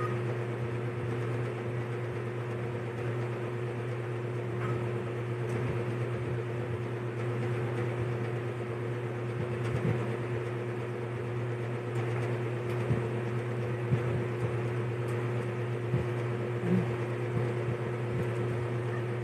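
Steady low mechanical hum of a running machine, with a few faint short clicks scattered through it.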